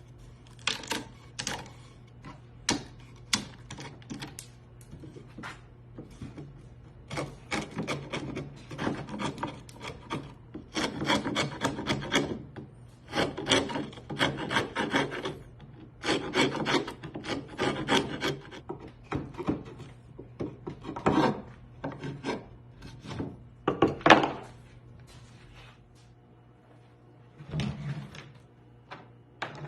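A hand tool scraping or rasping wood in many short strokes, coming in quick runs with brief pauses, over a steady low hum.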